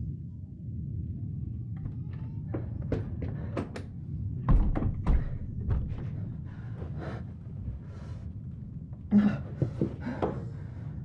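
A run of irregular thuds and bangs against a wooden front door, the loudest about four and a half seconds in and again about nine seconds in, over a steady low rumble.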